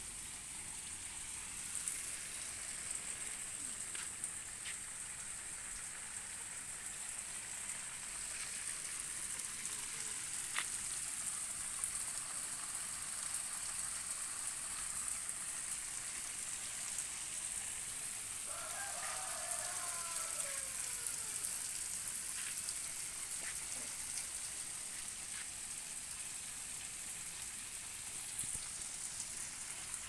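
A steady high hiss runs throughout, with a few faint clicks. About two-thirds of the way in, a bird gives a short falling call.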